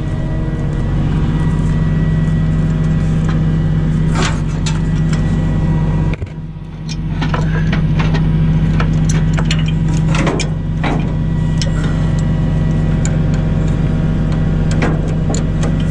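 Truck engine idling steadily, with scattered metallic clinks and clanks as a tow chain is hooked to a truck's frame.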